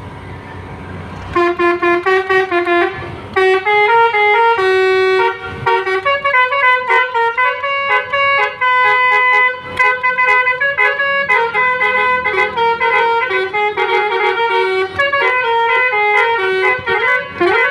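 Basuri telolet multi-tone musical horn playing a tune of quick, stepping notes, starting about a second in and going on in runs with short breaks.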